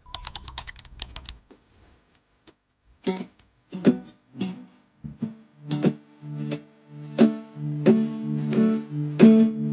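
Background music: quick ticking notes at first, then single plucked guitar notes about every half second, with sustained low notes coming in under them about six seconds in.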